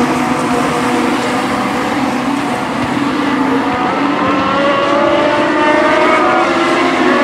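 A pack of Legends race cars running together at high revs, their Yamaha motorcycle engines overlapping. The engine pitch climbs from about halfway through as the cars accelerate.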